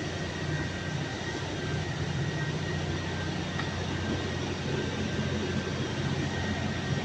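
Steady drone of running machinery: a low hum with a faint high whine over it, unchanging throughout.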